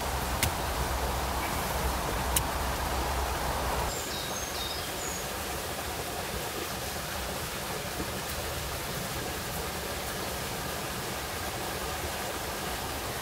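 Steady rush of running stream water, with two sharp knocks of a wooden digging stick striking the clay bank, about half a second and two and a half seconds in.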